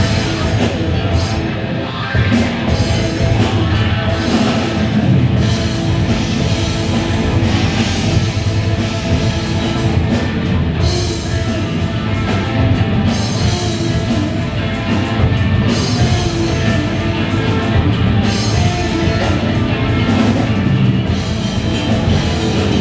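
Loud, dense heavy rock music from a full band, with drum kit and guitar, playing without a break.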